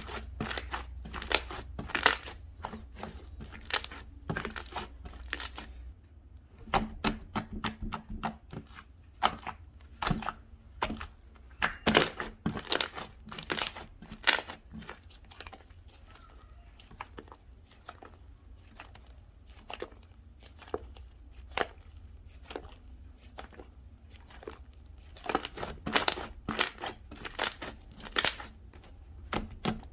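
Slime being squished, stretched and poked by hand, giving irregular sticky clicks, pops and crackles. The clicking is dense at first, thins out in the middle and picks up again near the end.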